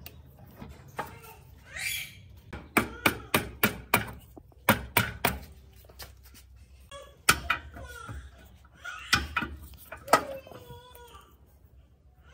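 Sharp metal knocks in quick runs of several blows, as a hoverboard hub motor clamped by its axle in a bench vise is knocked apart, the wheel shell being driven off the copper-wound stator.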